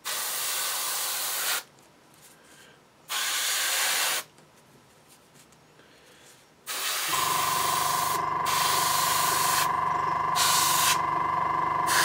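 Airbrush spraying paint in short hissing bursts of one to two seconds, started and stopped with the trigger, with quiet gaps between them. About seven seconds in, the air compressor starts and keeps running with a steady humming tone under the spraying.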